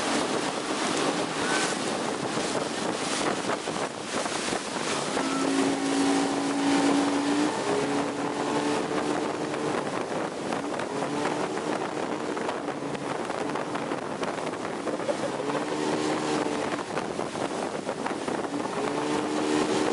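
Yamaha V6 150 two-stroke outboard running at speed, its steady tone coming and going at times over the rush of the churning wake and wind buffeting the microphone.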